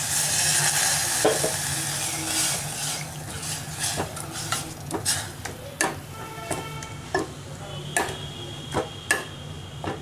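Cooked toor dal water poured into a hot stainless steel pot of fried onions, spices and gongura leaves, hissing and sizzling loudly for the first few seconds. A steel ladle then stirs the mixture, scraping and clinking against the pot about ten times.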